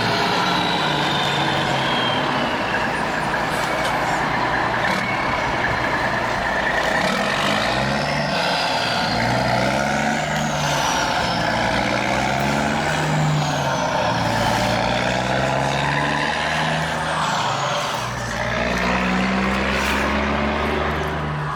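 Radio-controlled construction trucks running: a steady truck-like engine drone that shifts in pitch, with high motor whines gliding up and down several times.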